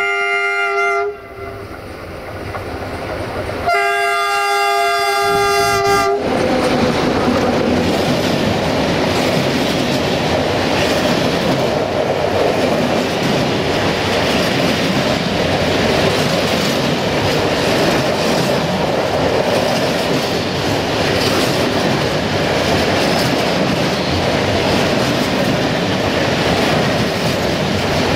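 Romanian 060-DA (LDE2100) diesel-electric locomotive's horn: a short blast at the start, then a longer blast of about two seconds, as the train approaches. Then a freight train of empty stanchion flat wagons rolls past close by, its wheels rumbling and clattering steadily over the rails.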